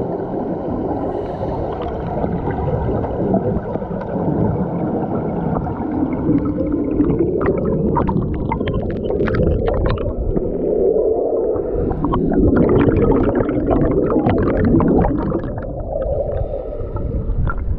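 Underwater rumble and bubbling of scuba divers' exhaled air rising through the water, heard underwater, with fizzing, crackling spells in the middle as the bubbles stream past close by.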